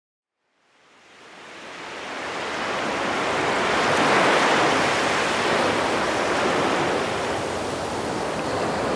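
Steady rushing noise of lake water and wind, fading in over the first two seconds after a moment of silence, with no engine note standing out.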